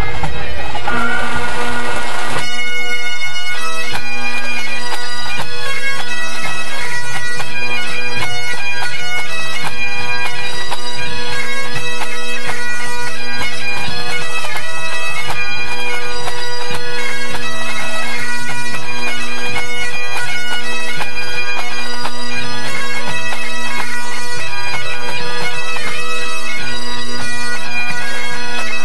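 A pipe band's Great Highland bagpipes playing together during their tune-up: steady drones held under a fast, ornamented chanter tune, loud and close.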